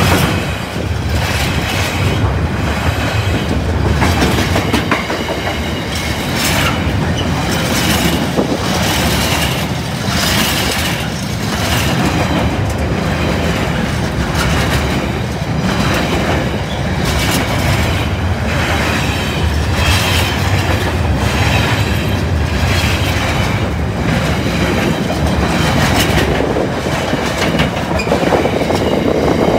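Intermodal freight train's container flat wagons rolling past, the wheels clattering over the track in a continuous run of knocks and clicks over a steady rumble.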